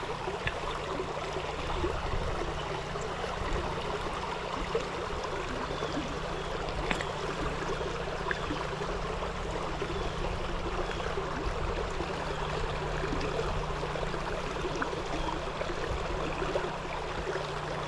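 Creek water running steadily over rocks, with a few faint clicks.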